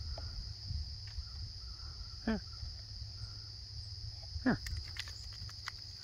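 Steady high-pitched insect chorus, like crickets, over a low outdoor rumble, with two short falling vocal sounds about two and four and a half seconds in.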